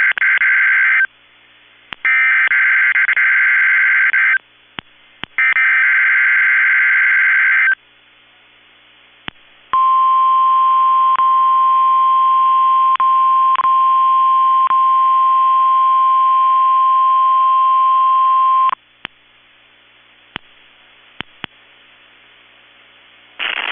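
NOAA Weather Radio Required Weekly Test: the end of one burst and then two more bursts of the SAME digital header, a warbling modem-like data sound, then after a pause the steady 1050 Hz warning alarm tone for about nine seconds. The tone cuts off sharply, leaving faint hiss with a few clicks.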